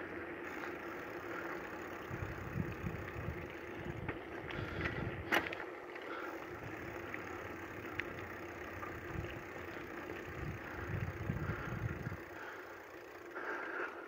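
A vehicle driving, heard as a steady engine and road drone with uneven low rumbles, and one sharp click about five seconds in.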